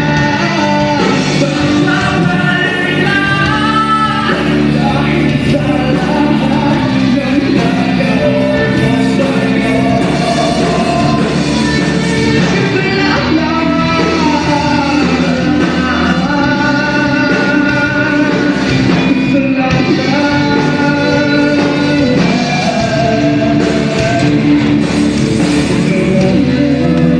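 A live band plays a rock-style song with a lead singer, loud and continuous, with the vocal line rising and falling over steady bass and drums.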